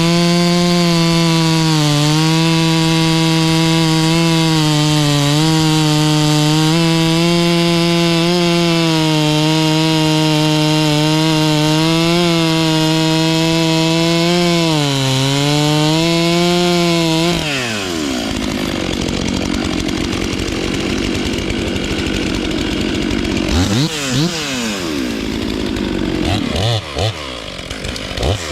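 Two-stroke chainsaw running at full throttle, its pitch dipping slightly again and again as it loads up in the cut. About two-thirds of the way through the throttle is released and the engine falls to idle, then is revved briefly a few times near the end.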